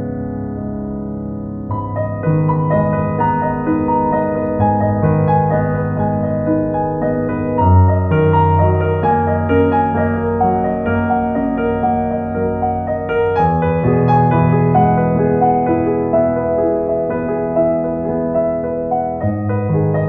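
Calm piano music: held chords over long bass notes, with a slow melody and the harmony changing every few seconds.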